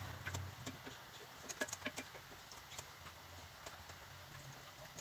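Wooden spatula scraping and tapping against the bottom of an enamelled cast-iron pot as broth is stirred into a flour roux, freeing flour stuck to the bottom. Faint, irregular clicks, most of them bunched about one and a half to two seconds in.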